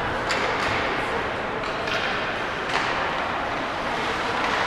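Ice hockey game heard from the stands: steady arena noise with faint crowd chatter, and several sharp clacks of sticks and puck in the first three seconds.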